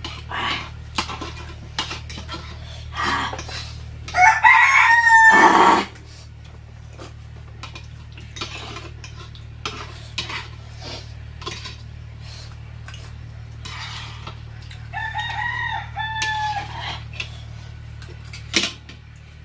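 A rooster crows twice: loudly about four seconds in and more faintly near the end. Between the crows, spoons and forks clink now and then against plates.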